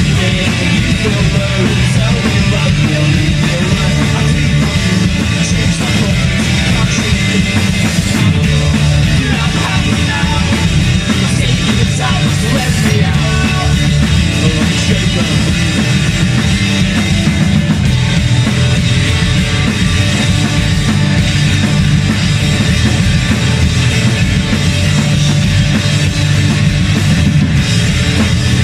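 Punk rock band playing a loud, dense instrumental passage with electric guitars and drum kit.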